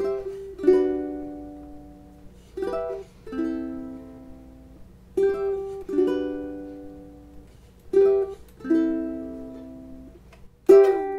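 Ukulele strumming slow chords: two strums close together about every two and a half seconds, each chord left to ring and fade.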